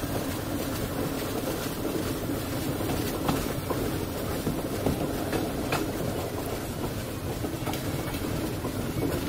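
Passenger train running at speed, heard from aboard beside the coaches: a steady rumble of wheels on the rails with a few sharp clicks.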